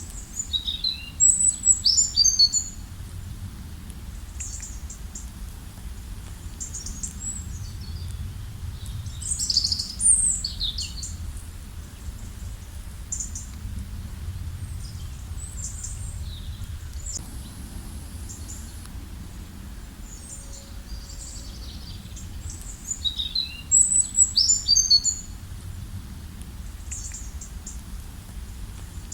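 Forest birds singing and calling: many short high chirps and trills from several birds, with a loud rapid song phrase about a second in and the same phrase again near the end. A steady low rumble runs underneath.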